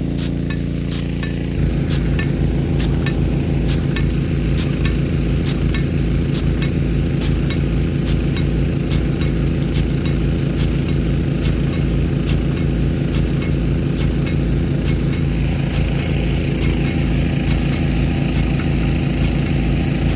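Small petrol-engine water pump running steadily, its note getting louder and changing about a second and a half in, over the hiss of the water spray and faint repeated clicks.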